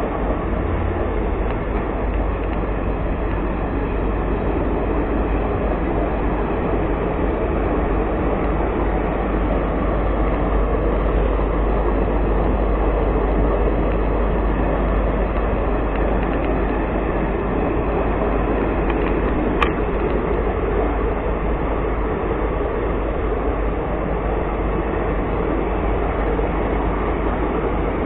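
MEMU electric multiple-unit train running steadily, with an even rumble and rattle of the coach on the track. A single sharp click about two-thirds of the way through.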